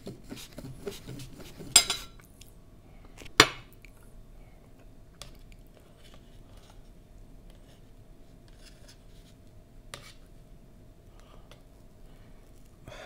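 Metal fork and knife scraping and clinking against a dessert tray while cutting a slice from a brazo de mercedes roll, with two sharp clinks about two and three and a half seconds in, and a few faint ticks later.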